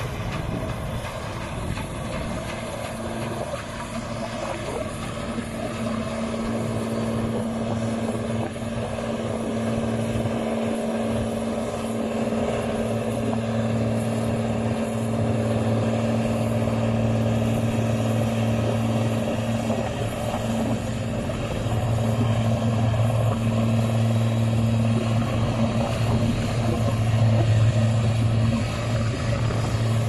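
Claas Senator 85 combine harvester running while cutting wheat, a steady diesel engine drone with a low hum that grows louder as the machine comes closer.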